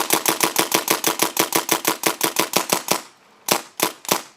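Paintball marker firing a rapid string of shots, about nine a second, that stops about three seconds in, followed by three single shots in quick succession.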